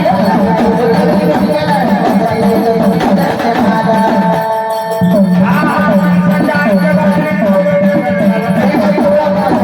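Marathi folk music: a sung melody with instrumental accompaniment and hand drumming over a steady drone. The music thins out briefly about halfway through, then comes back in full.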